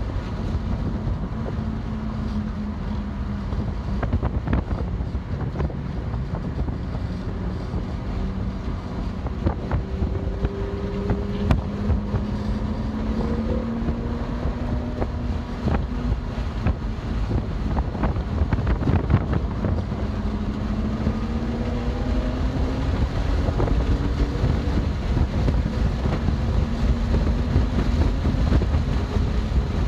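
BMW M2 Competition's twin-turbo straight-six under load on track, its note climbing slowly through several pulls and dropping back between them, under heavy wind and road noise.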